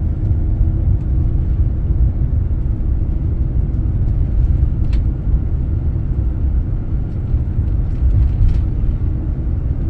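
Steady low rumble of engine and road noise heard inside a motorhome's cab while driving, with a faint click about halfway through.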